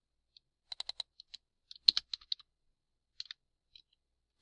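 Typing on a computer keyboard: short runs of keystrokes with pauses between them, the busiest run about two seconds in.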